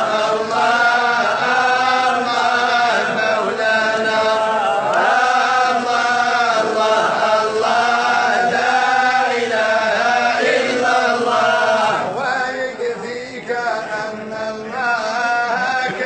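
A voice chanting in long, drawn-out melodic phrases, laid over the footage as a soundtrack; about twelve seconds in the phrases turn shorter and more broken.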